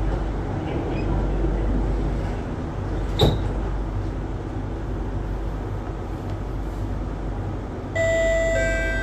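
Steady low hum inside a C151B metro train car, with a single sharp knock a little over three seconds in as the sliding doors shut. About eight seconds in, several steady whining tones start up as the traction equipment powers the train away from the platform.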